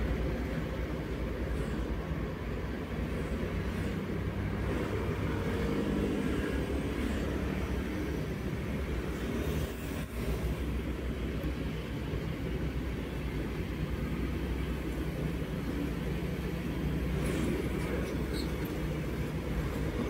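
Steady low engine and road noise inside the cabin of a moving Daihatsu Terios.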